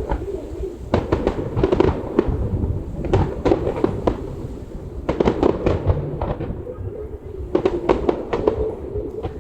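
Fireworks display: clusters of sharp bangs and crackles about every two seconds over a steady low rumble.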